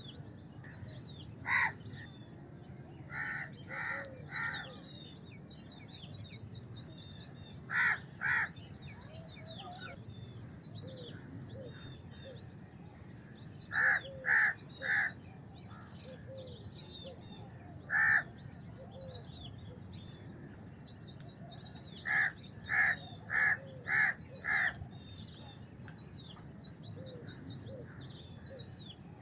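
House crows cawing, short harsh caws singly or in quick runs of two to five, about six runs in all, the longest near the end. Small birds twitter high and without pause underneath.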